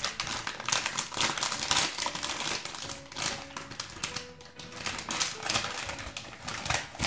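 Foil-lined plastic blind-bag packet crinkling and crackling as hands tear it open and pull it apart, in dense bursts.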